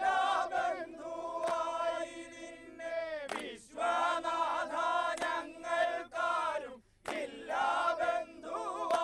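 Men singing a chanted boat song together in chorus, in phrases of a few seconds. The phrases break off with falling notes about a third of the way in and again near the end.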